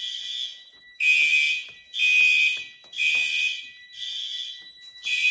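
Fire alarm system sounding in alarm, a high-pitched blast repeating about once a second: a smoke detector has just tripped on smoke from a lighter during a functional test.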